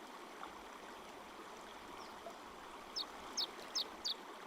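Faint, steady running water of a stream, with a small bird giving four short, high chirps that fall in pitch near the end.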